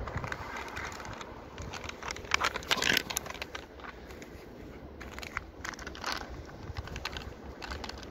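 Irregular crunching and scraping in snow, with a louder stretch of crunching about two to three seconds in.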